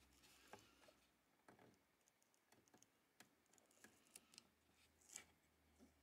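Near silence, with faint scattered small clicks and rubbing as fingertips press and smooth a paper sticker onto the plastic wall of a toy house.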